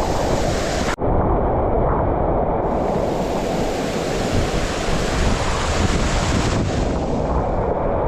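Loud, steady rushing of water, an even roar with a brief dropout about a second in.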